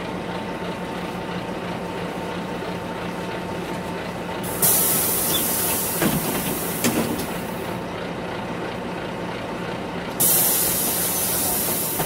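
Inside a city bus: a steady engine and road drone, broken twice by sudden hisses of compressed air from the bus's air system, each lasting about three seconds. The first comes about four and a half seconds in, with a couple of knocks during it; the second comes near the end.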